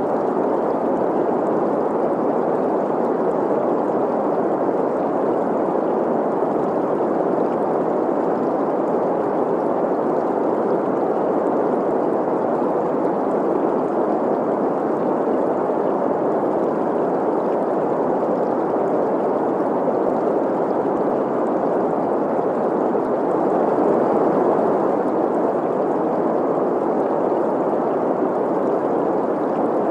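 Steady green noise, a smooth mid-range hiss, mixed with the sound of a flowing stream.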